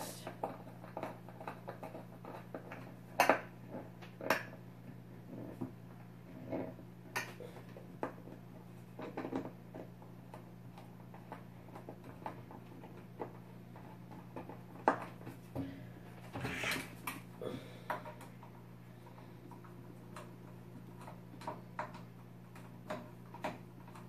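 Hand screwdriver driving screws into wooden slats: scattered small clicks and knocks of the driver tip, screws and wood, at irregular intervals, a few louder ones about three and four seconds in and again past the middle. A steady low hum runs underneath.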